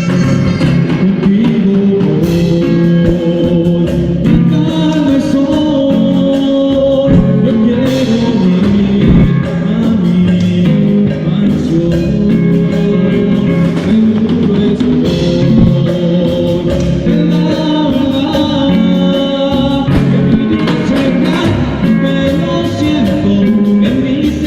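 A band playing a song, with a singing voice over guitar and drum kit.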